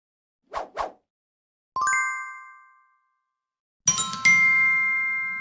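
Intro sound effects: two quick swishes, then a bright chime that rings out and fades, then a second chime struck over a low rumble that keeps ringing.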